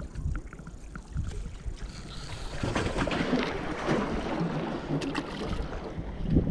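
Wind buffeting the microphone as a low rumble, with a louder rushing noise from about two and a half seconds in.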